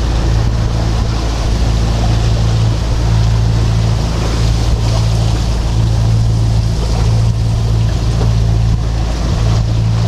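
A sailing yacht's inboard engine running steadily with a low hum, under the rush of wind and sea water along the hull.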